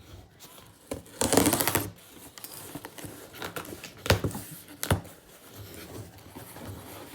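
Cardboard shipping box being opened and handled: a loud rasp lasting under a second about a second in, then scattered sharp clicks and knocks of cardboard.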